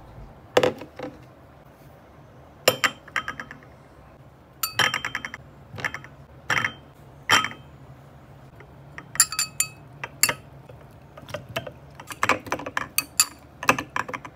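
Glassware clinking: a drinking glass and a glass saucer being set down and handled, a series of sharp clinks with short ringing, some single and some in quick clusters, coming more often near the end.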